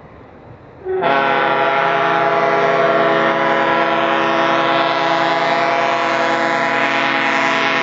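Diesel locomotive's air horn sounding one long, steady multi-note chord. It starts abruptly about a second in and holds at an unchanging pitch.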